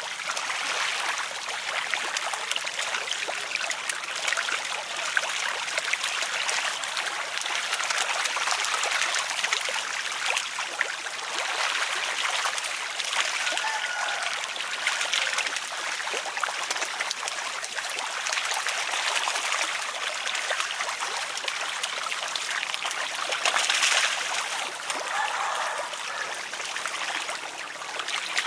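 Many fish thrashing at the surface of shallow water: a constant churning, splashing patter of water with many small splashes.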